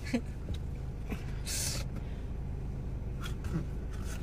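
Steady low rumble inside a car's cabin, with one short breathy hiss about one and a half seconds in.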